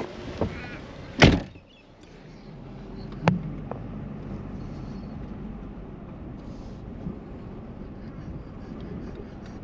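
A car door slams shut about a second in, the loudest sound, cutting off the outside wind noise. A sharp click follows a couple of seconds later, then the steady low hum of the car running, heard from inside the cabin.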